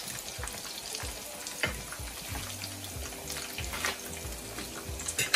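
Breaded chicken nuggets sizzling steadily as they shallow-fry in oil in a frying pan, with a few light clicks of metal forks against the pan as the pieces are turned over.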